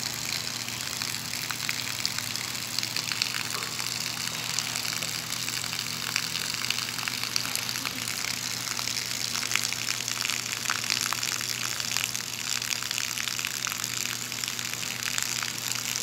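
A thin stream of water falling onto wet stones and splashing steadily, a continuous gushing spatter full of fine droplet ticks, with a faint steady low hum underneath.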